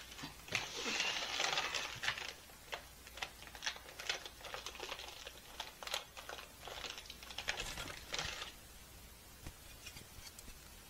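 Crackling, crinkling rustle full of sharp little clicks, starting about half a second in and stopping about eight seconds later, followed by a few faint scattered clicks.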